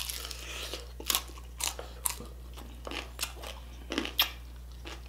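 Close-miked biting and chewing of crispy pata, deep-fried pork knuckle with crackling skin: sharp, irregular crunches about every half second, with quieter chewing between.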